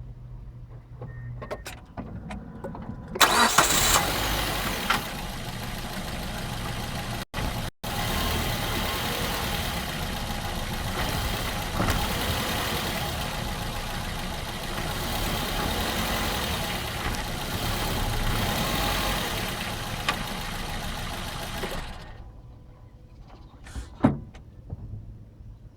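Mazda 2 engine started about three seconds in and left running for close to twenty seconds, then switched off, followed by a single click. The owner suspects a bad motor mount.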